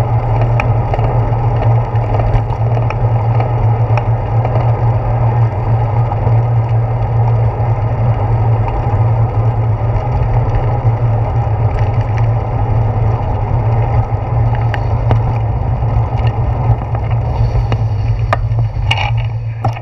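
Bicycle riding over asphalt, picked up by a handlebar-mounted action camera: a steady, loud rumble of tyre and road vibration and wind on the microphone, with small clicks and rattles scattered through it.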